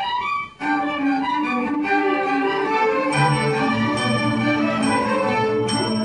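Student string orchestra playing, with violins on top and cellos and basses below. The sound drops out briefly about half a second in, then the whole ensemble comes back in together.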